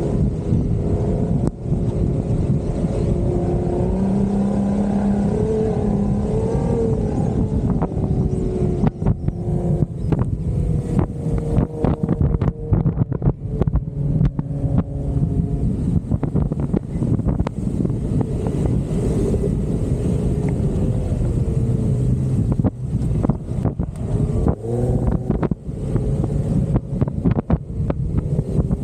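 Jeep Wrangler engine running under load while driving off-road, its pitch rising and falling with the throttle. From about eight seconds in there are frequent short knocks and buffets over the engine.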